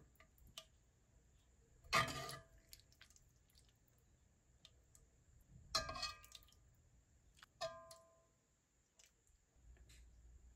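A metal ladle clinks against a stainless steel soup pot three times, about 2, 6 and 8 seconds in, each clink ringing briefly.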